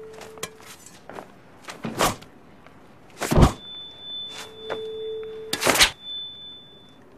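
Film sound effects of a long sword being drawn and swung, with footwork: a series of sharp whooshes and knocks, the loudest a deep thud about three and a half seconds in and another burst near the end. A thin high ringing tone holds through the second half.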